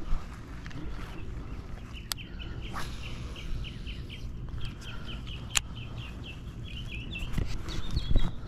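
A bird singing a long run of short, quick chirps, about four a second, starting about two seconds in, over a steady low rumble of wind on the microphone. Two sharp clicks cut in along the way.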